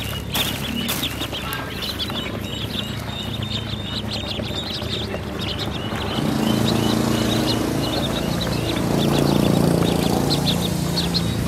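A brood of ducklings peeping constantly in rapid, high little calls. A low droning hum comes in about six seconds in and becomes the loudest sound.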